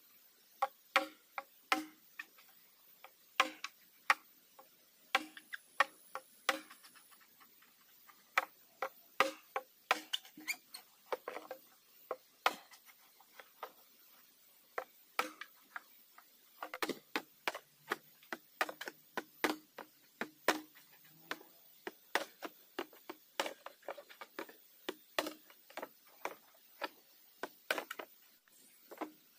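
Bamboo being knocked and cut with a hand tool: irregular sharp knocks and taps, one to three a second, many with a short hollow ring.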